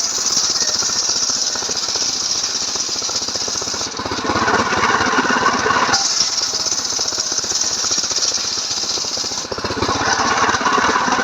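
Stihl MS 381 two-stroke chainsaw running at high revs while ripping through a log, its engine note shifting back and forth every few seconds as the load on the chain changes.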